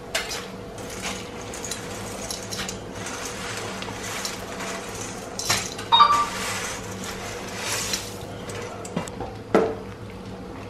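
Metal pots and utensils clinking and knocking as noodles go into a pot of boiling water, with several separate clinks and one short ringing clink about six seconds in, over a steady low hum.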